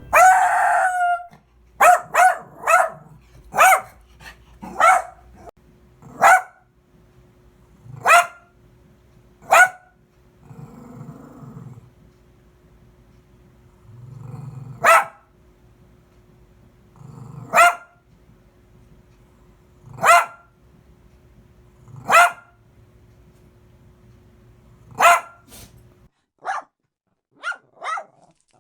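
Chihuahua barking: single sharp, high barks every second or two, some in quick pairs, with a few low rumbling sounds between barks in the middle. Near the end the barks turn shorter and quieter, coming in a quick run.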